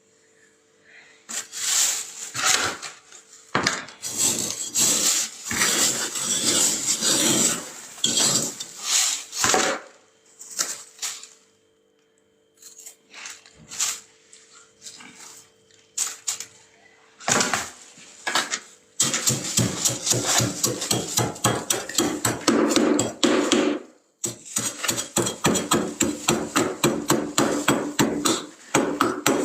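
Frost being scraped off the inside of a freezer in quick, rough strokes. It comes in bursts, with a sparser pause of a few scrapes in the middle, then turns into fast, even scraping of about four strokes a second.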